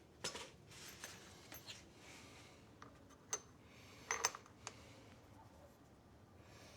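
Small metal hardware on a mower wheel and axle being handled: about half a dozen scattered light clicks and clinks. The two loudest, a little past the middle, have a brief metallic ring.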